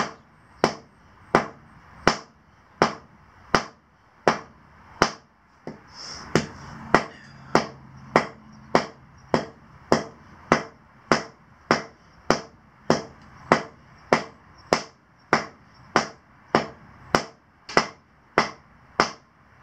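Steady hammering with a hand sledge on an asphalt driveway, about three blows every two seconds, pounding down a raised hump in the surface beside a drilled hole.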